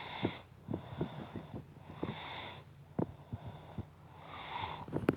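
A boy snoring in his sleep: short, raspy breaths about once a second, with soft irregular clicks underneath.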